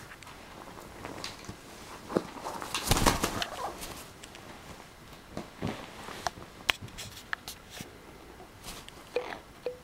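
Blue-fronted Amazon parrot attacking a plastic bottle on bedding: scuffling and rustling, with a loud flurry about three seconds in, then scattered sharp clicks of beak and bottle, and a couple of short low calls near the end.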